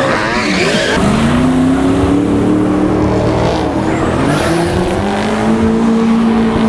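Several drift cars sliding past in a close tandem train. Their engines run at high revs, the pitch bouncing up and down during the first second or so, then rising a little and holding steady, over the hiss of sliding tyres.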